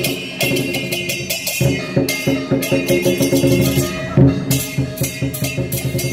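Chinese lion-and-dragon-dance percussion, with a big drum, clashing cymbals and gongs beating a fast, driving rhythm of about five or six crashes a second. The drum hits grow heavier about one and a half seconds in.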